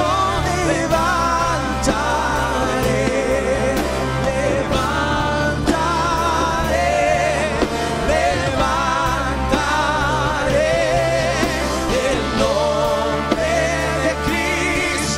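Live worship band playing: several voices singing long wavering notes over electric guitars, keyboard and a steady drum beat.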